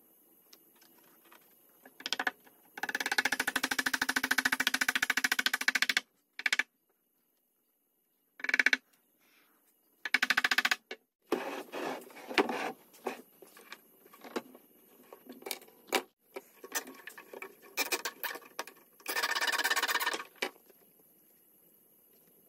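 A handheld power tool running in short bursts with a rapid chatter, with knocks and clicks of wood being handled in between.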